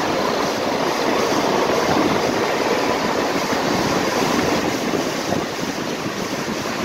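A swollen, muddy mountain river rushing through white-water rapids, a steady, unbroken noise.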